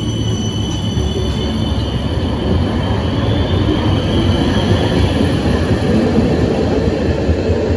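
Trams running through an underground station: a steady rumble of steel wheels on rail with a high, thin wheel squeal. It grows louder about two and a half seconds in.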